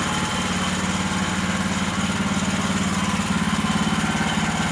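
Small gas engine of a portable sawmill running steadily under load as the mill saws through a log, with a slight step up in pitch early on and again about two seconds in.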